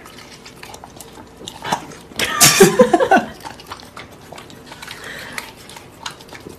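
A dog vocalizing loudly about two seconds in: a wavering, falling sound lasting about a second, amid light clicks and rustling.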